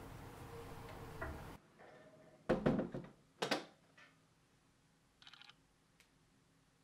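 A steady hiss that cuts off after about a second and a half, then a few sudden knocks and clatters of things being handled, the loudest in a cluster near the middle, followed by a brief rapid rattle.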